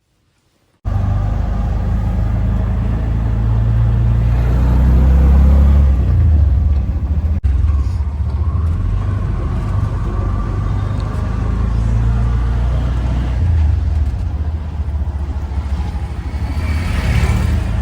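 Steady low rumble of a car moving on the road, heard from inside the cabin. It starts abruptly just under a second in.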